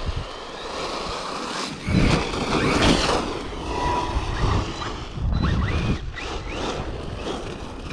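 Arrma Mojave 4S RC monster truck's brushless motor, run on a 5S LiPo, driving with short bursts of throttle. It gives several brief rising whines, mixed with low rushes of noise.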